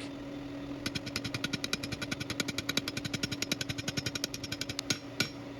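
Rapid, evenly spaced hammer blows forging a hollow steel tube, about eight strikes a second, stopping near the end with one louder single blow, over a steady low hum.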